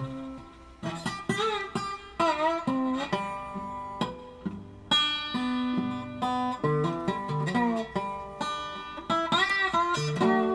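Background guitar music: plucked notes, several of them bending in pitch.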